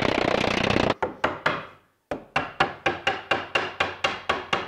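Wooden mallet tapping shelf boards to seat their half-lap joints, struck gently so the wood does not split. A quick rapid flurry of light blows fills the first second, then after a short pause the taps come evenly, about four a second.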